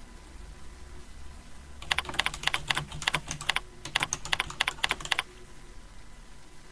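Computer keyboard typing: a quick run of keystrokes starting about two seconds in and lasting about three seconds, with a short pause partway through.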